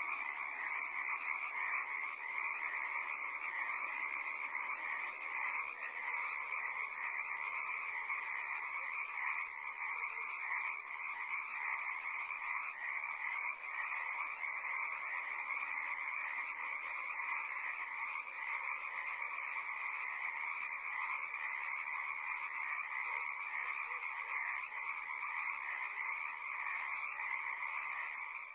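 Frogs croaking without a pause, a steady, unbroken stream of calls at an even level.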